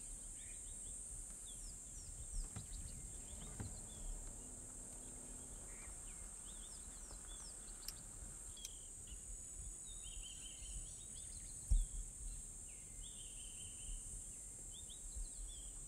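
Bush ambience: a steady high-pitched insect drone with scattered bird chirps and calls. A few low thumps stand out, the loudest about twelve seconds in.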